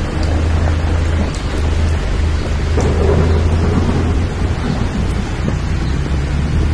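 Heavy rain falling, with a steady low rumble of thunder underneath.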